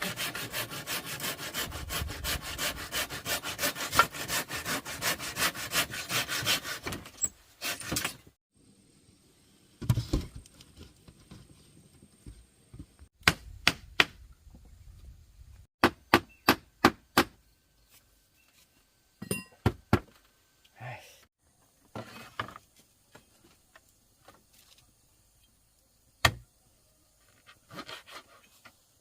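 Fast, even back-and-forth scraping strokes, like rasping or sawing, that stop about seven seconds in. Scattered sharp knocks and clacks follow, a few at a time.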